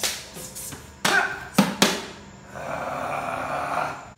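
Ginunting training blades in a quick flurry of strikes and swishes against a rope-wrapped striking post, about six sharp hits in the first two seconds, followed by a steadier rushing noise for over a second.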